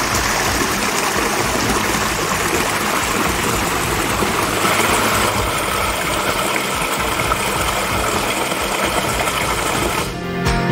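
A small waterfall spilling over a rock ledge into a shallow creek pool: a steady rush and splash of falling water.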